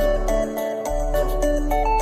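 Background music: a light melody of sustained notes over a steady bass line, with the bass dropping out for a moment about half a second in.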